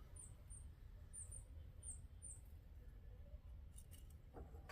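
Near silence: a low background hum with a handful of faint, very high, short downward chirps in the first half.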